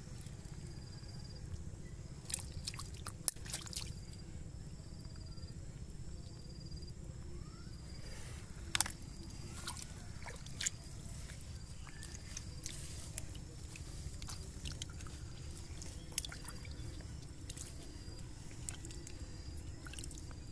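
Hands splashing and squelching in shallow muddy water while grabbing small fish, with scattered splashes and drips. A faint high chirp repeats about once a second in the background.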